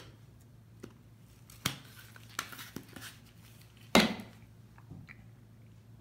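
Gloved hands handling water test strips, glass jars and the strip bottle on a table: scattered small clicks and rustles, with one louder knock about four seconds in, over a faint steady hum.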